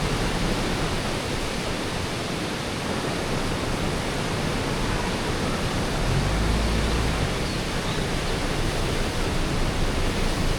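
Gura River's fast water rushing over rapids, a loud, steady roar of water. A brief low rumble rises about six seconds in.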